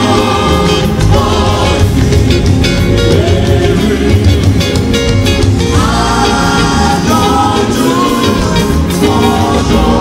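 A large church choir singing a hymn together over instrumental accompaniment with a steady beat.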